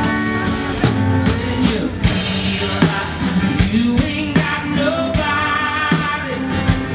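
A man singing over a strummed acoustic guitar.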